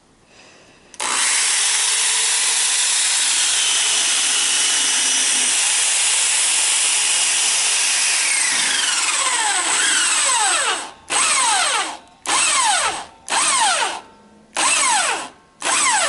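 Bosch Super Hobby corded electric drill in a bench drill stand, starting about a second in and running steadily while drilling a steel tube. Near the end it is switched on and off in about five short trigger bursts, its pitch falling as it spins down after each.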